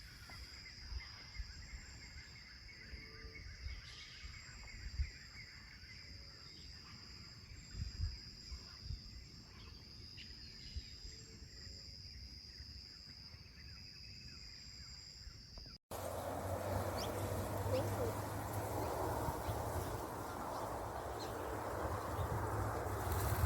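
Outdoor ambience: a steady high-pitched insect drone with a few short bird chirps and occasional low knocks. About two-thirds of the way through it cuts abruptly to louder, noisier rustling with a low hum.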